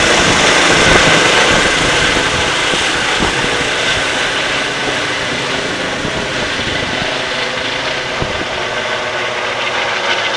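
A rescue helicopter climbing away overhead just after lift-off: a loud, steady turbine and rotor noise that slowly fades.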